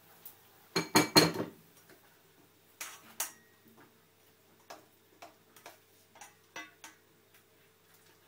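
Metal spoon and stainless-steel saucepan clanking together. A loud cluster of ringing clanks comes about a second in, then two more knocks around three seconds, then a run of lighter taps and scrapes of the spoon in the pan.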